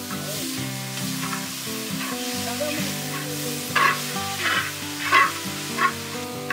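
Chopped tomatoes sizzling in hot coconut oil with onions and green chillies in a large black kadai as they are tipped in. A metal slotted spoon then stirs them, with four loud scraping strokes against the pan about two-thirds of a second apart in the second half.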